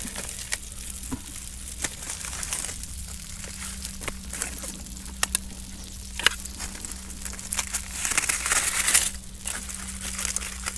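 Aluminium foil parcel crinkling as it is handled and slit open with a knife, with scattered sharp clicks; the crinkling grows louder near the end.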